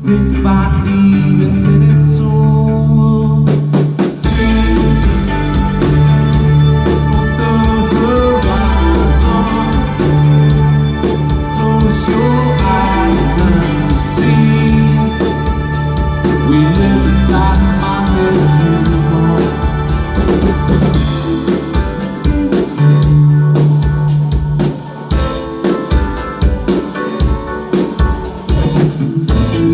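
Live rock band playing an instrumental passage: held low chords at first, with the drums coming in about four seconds in.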